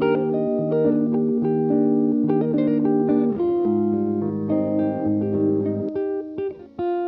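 Background music led by guitar, with sustained chords that change every second or so and a short break near the end.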